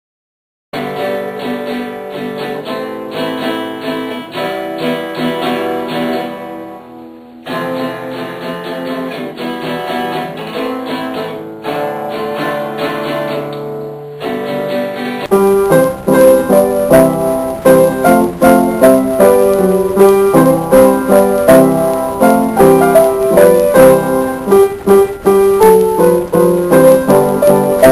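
Piano music starts about a second in, sounding dull with the treble missing and a brief dip about seven seconds in. From about fifteen seconds in a piano played four hands, two players side by side, sounds louder and fuller.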